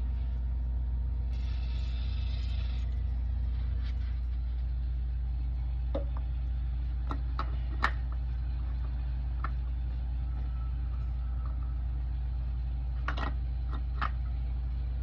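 A steady low machine hum with a few scattered light clicks and knocks.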